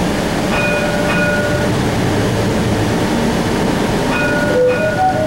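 Cincinnati Bell Connector streetcar heard from inside as it runs toward a stop, with a steady rumble of the car. Short electronic chime tones sound twice, once near the start and again near the end.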